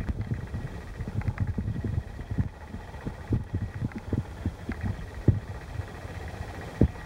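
Creek water heard through an underwater camera: an irregular run of low thuds and knocks, several a second, over a low rumble.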